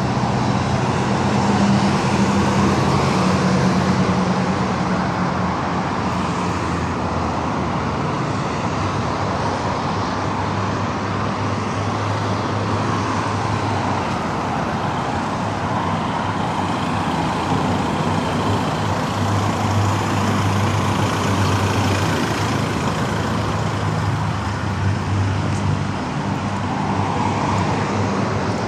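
Steady road traffic on a city boulevard: a continuous rush of passing vehicles, with low engine hum swelling and fading as vehicles go by.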